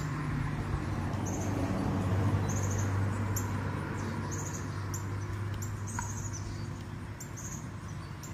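Short, high chirps, roughly two a second, over a steady low hum.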